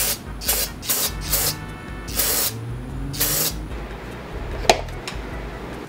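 Aerosol cleaner sprayed through a straw nozzle onto a flywheel in short hissing bursts, about five of them in the first three and a half seconds. A single sharp click comes about three-quarters of the way through, over background music.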